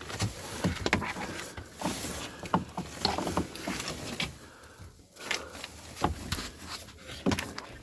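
Scattered knocks, taps and scraping of wood and hand-held tools being handled against the floor joists in a cramped crawlspace; no drill runs.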